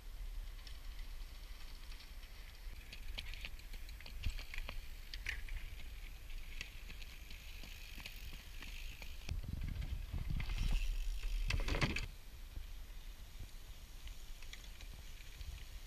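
Cyclocross bikes ridden over a dirt course: scattered clicks and rattles over a low rumble, which grows louder about ten to twelve seconds in.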